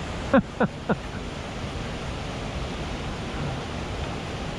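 Steady rush of moving water. Near the start come three short, loud squeaks that each fall quickly in pitch, about a third of a second apart.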